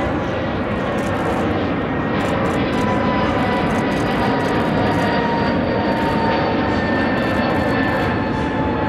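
Embraer E195-E2 airliner flying past overhead, its Pratt & Whitney PW1900G geared turbofans making a steady loud rushing noise with faint whining tones that slowly drop in pitch.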